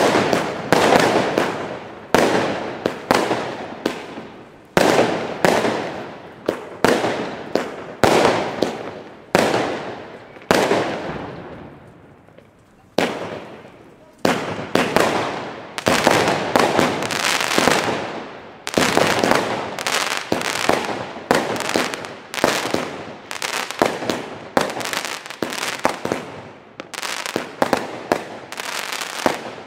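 Consumer fireworks battery firing shot after shot: sharp bangs of aerial bursts, about one or two a second, each dying away quickly. There is a short lull about twelve seconds in, and then the firing resumes.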